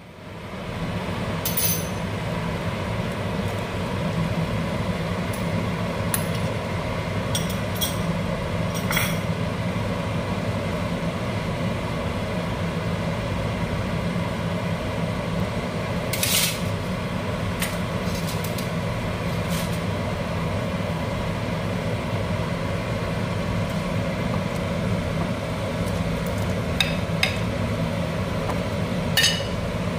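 Water at a rolling boil in a pan on a gas stove, a steady rumbling hiss, with a few light clinks against the pan; the sharpest clink comes near the end as raw chicken is tipped in from a plate.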